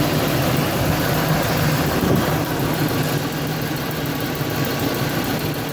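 Car engine idling steadily, a low even hum with no changes in speed.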